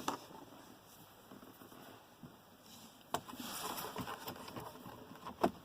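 Faint handling sounds from work on a car dashboard: a screwdriver turning out the instrument cluster's screws, with a few sharp clicks and a stretch of scratchy rustling against the plastic trim about three seconds in.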